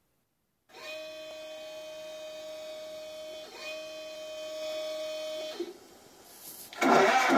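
An Elmod Fusion sound board plays a KV-2 tank's cold-start sound through a small speaker. Two spells of a steady starter-like whine and hum, each opening with a short rising sweep, are followed near the end by the engine sound coming in much louder with wavering pitch.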